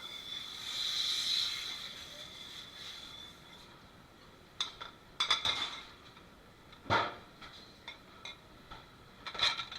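Dishes and cutlery clinking and clattering in a restaurant dish pit, several separate knocks in the second half. Before that there is a steady high whine with hiss that swells about a second in and fades after about three seconds.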